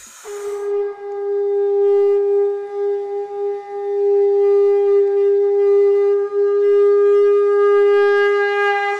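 A conch shell (shankh) blown in one long, steady note, held for almost nine seconds and growing somewhat louder about halfway through.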